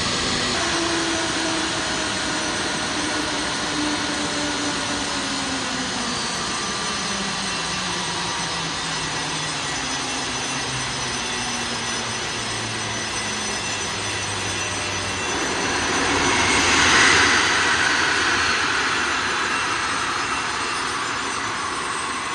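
Airbus A321's turbofan engine winding down, its whine falling steadily in pitch over a steady jet roar. About three-quarters through, a louder rush of noise swells and fades.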